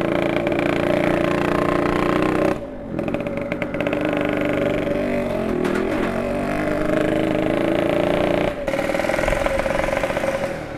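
Yamaha RX Special 115 two-stroke single-cylinder motorcycle engine running under way at low speed. The engine note holds steady, drops sharply as the throttle closes about two and a half seconds in, picks up and wavers, then drops again near the end.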